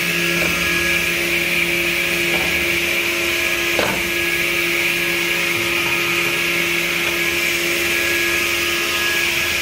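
Automatic edge banding machine running smoothly: a steady motor hum with a constant hiss over it, and a brief swish about four seconds in.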